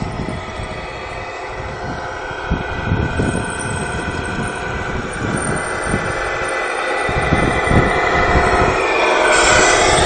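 Radio-controlled Tamiya Scania R470 truck driving a lowboy trailer loaded with a model excavator, a steady mechanical running sound that grows louder and brighter near the end as it passes close.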